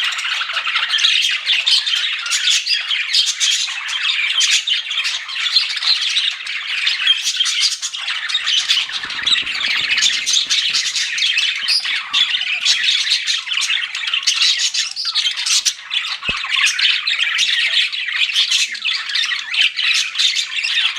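A flock of budgerigars chattering and chirping nonstop, many birds at once in a dense, overlapping warble.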